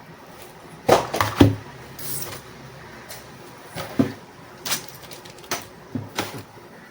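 Handling of crimping tool kit parts: a quick cluster of sharp knocks and clicks about a second in, then single light clicks about once a second.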